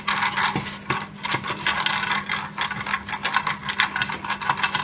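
Silicone pastry brush swept and dabbed over an oiled metal fluted ring cake mould, making quick, irregular scratchy strokes with small clicks as the brush and pan knock.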